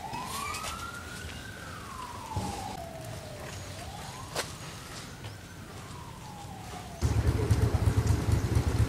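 A wailing siren, its single tone rising and falling slowly twice, about three and a half seconds per cycle. About seven seconds in it cuts off abruptly and a loud low rumble takes over.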